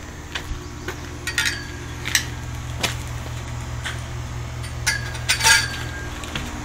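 Footsteps climbing wooden outdoor stairs, with several sharp metallic clinks, the loudest near the end, over a steady low hum that starts about half a second in.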